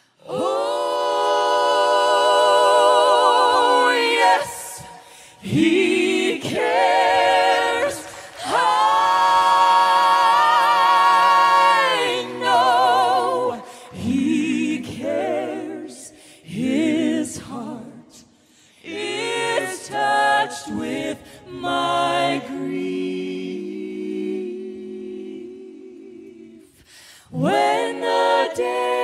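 Unaccompanied singing of a slow hymn: long held notes with wide vibrato in phrases broken by short pauses, softer through the middle and swelling again near the end.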